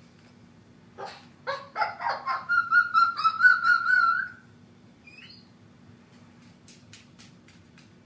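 A cockatoo mimicking a dog's bark: a run of about five short, sharp barks, then a long, wavering, whining call that stops abruptly.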